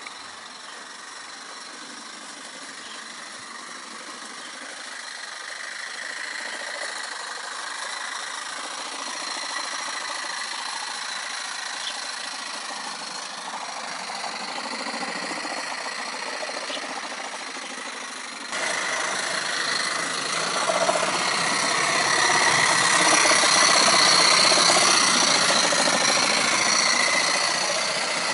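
Coal-fired live-steam model locomotive with a vertical boiler running along garden-railway track, its small steam engine working steadily under load. It grows gradually louder, becomes much louder about two-thirds of the way through as it comes close, then eases slightly near the end.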